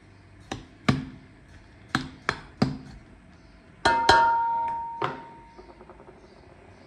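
Sharp taps on a stainless steel bowl, six spread over the first three seconds. About four seconds in, a harder double strike sets the bowl ringing with a clear metallic tone that fades over about a second and a half, followed by one more tap.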